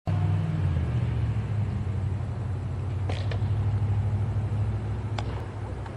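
Steady low hum and rumble, with short sharp sounds about three seconds in and again about five seconds in.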